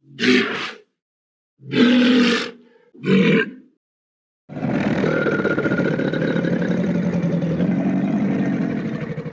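An animal calling: three short calls about a second apart, then one long pulsing call lasting about five seconds.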